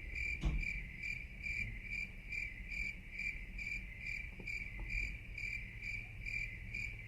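A cricket chirping in a steady, even rhythm, about two to three short high chirps a second. There is a faint knock about half a second in.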